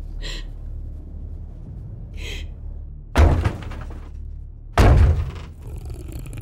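Dark, low droning horror film score. Two faint shimmering tones come in the first half, then two heavy, echoing thuds about a second and a half apart.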